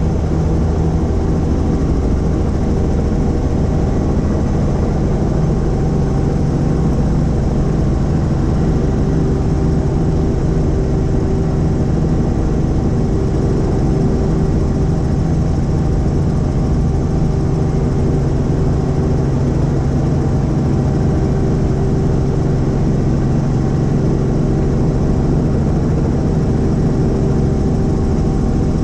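Helicopter in flight: loud, unchanging engine and rotor noise, a steady low drone with several constant hum tones over it.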